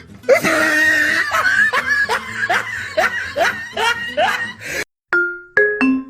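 A cartoon voice laughing in a long run of rising bursts, about two or three a second. It cuts off just before the end and a bright tune of short mallet-percussion notes begins.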